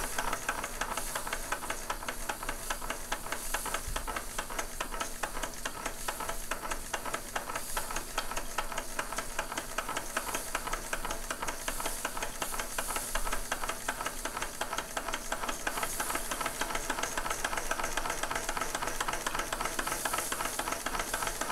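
Bing live-steam toy engine (vertical boiler and horizontal mill engine, about 1909) running fast: a steady hiss of steam with a rapid, even mechanical clatter, which the owner puts down to a noisy drive on the governor.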